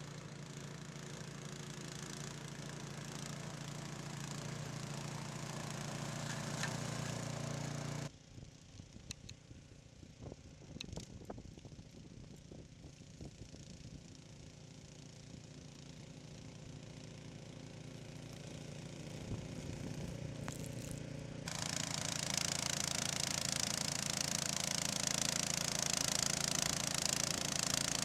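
Snowblower's small engine running steadily. About eight seconds in the sound drops away abruptly to a fainter hum with scattered knocks, then returns loud with a strong hiss for the last several seconds.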